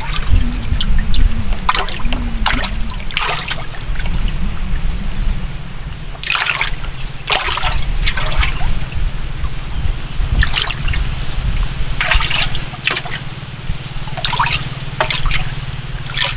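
Water splashing and trickling in short, irregular bursts every second or two, over a steady low hum.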